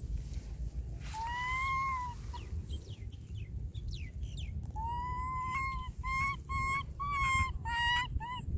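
Baby macaque giving high, clear coo calls to call another monkey. There is one long call, then after a pause a string of about six calls, the first long and the rest short, all over a low rumble of wind on the microphone.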